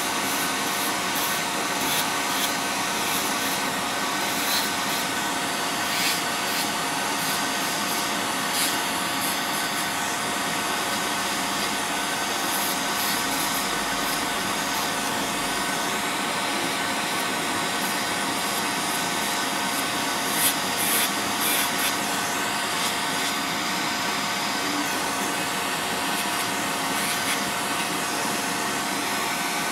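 Podiatry nail drill running steadily with a whine of several fixed tones over a hiss, its small bit grinding down a thickened, fungus-infected toenail.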